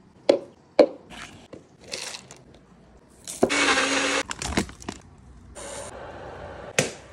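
Knocks of ingredients going into a plastic blender cup, then a bullet-style personal blender running in one short burst of about a second as it blitzes the curry paste. A few more knocks and a quieter stretch of noise follow.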